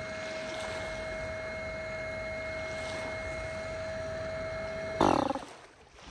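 Electric air pump running with a steady whine as it inflates an inflatable floating-dock platform. About five seconds in there is a brief loud burst of noise, and the pump stops.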